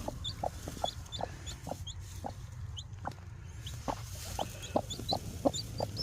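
Broody hen clucking in short low notes, about two a second, with a newly hatched chick's high, thin peeps repeating in between.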